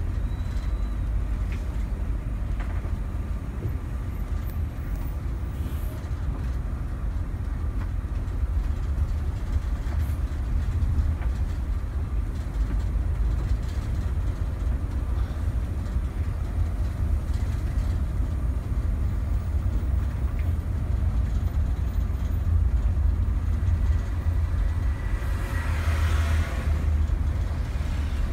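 Inside the cabin of a rear-engined Mercedes-Benz OH 1626 NG coach on the move: a steady low engine rumble with road noise. A louder rushing hiss rises and fades about 25 seconds in.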